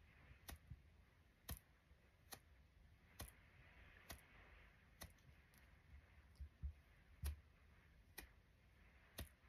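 Faint light clicks and taps of makeup brushes being handled, their handles and ferrules knocking together, roughly once a second, over quiet room hiss.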